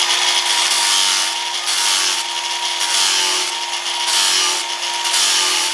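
Angle grinder running steadily, its disc cutting into a steel bar in short repeated passes, so the grinding hiss rises and falls about once a second over the steady motor whine.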